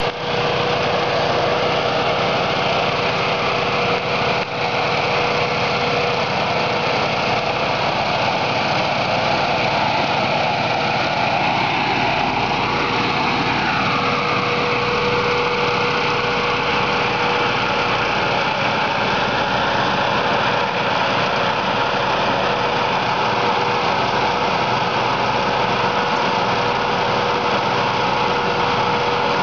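Air-blast orchard sprayer running, its 13 hp Honda engine driving the blower fan: a loud, steady engine drone under a rushing blast of air, with one steady hum held throughout.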